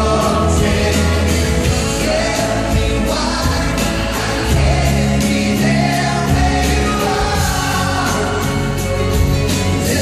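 Live pop vocal performance: men singing into microphones, two voices together, over acoustic guitar accompaniment.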